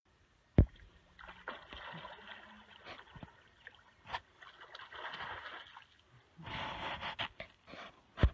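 Water splashing in three rough bursts, with a sharp knock about half a second in and another near the end.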